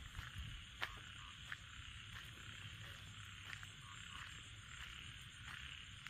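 A chorus of frogs calling at night, a steady trilling with separate short croaks standing out about once a second.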